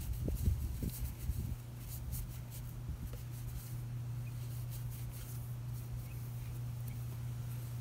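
A steady low hum, with a few faint knocks and rubbing handling sounds in the first second or so.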